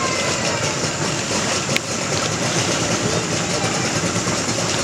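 An engine idling steadily, with one sharp click just under two seconds in.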